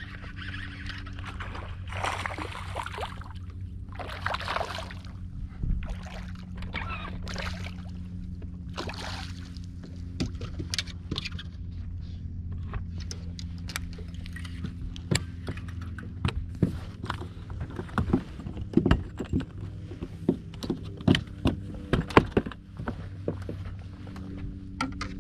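Steady low hum of a bass boat's electric trolling motor. In the first part it is broken by a few short rushing noises, and later by a run of sharp knocks and clatters on the fibreglass deck.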